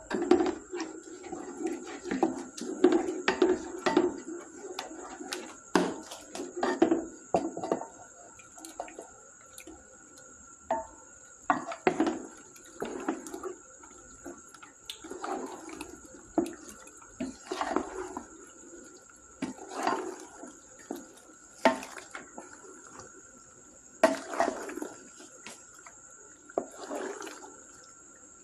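A spoon stirring penne pasta through a thick, cheesy white sauce in a pot: wet squelching with irregular scrapes and knocks of the spoon against the pot, busiest in the first few seconds. A faint steady high whine runs underneath.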